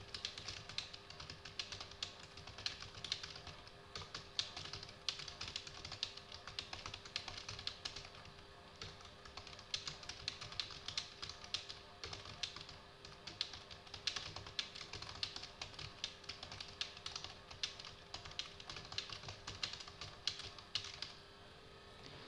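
Fast touch-typing on a computer keyboard: a dense, uneven stream of key clicks at about 80 words per minute, slightly distant from the microphone. The typing stops about a second before the end.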